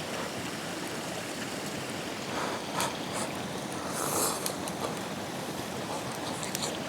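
A few light clicks and a short soft hiss of eating from a bowl with chopsticks, over a steady rushing background noise.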